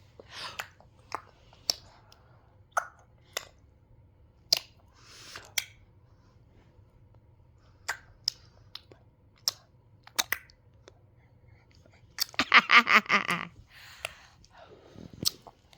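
A baby's mouth noises: scattered clicks and smacks of lips and tongue, then a short loud, buzzy, pitched vocal sound about twelve seconds in.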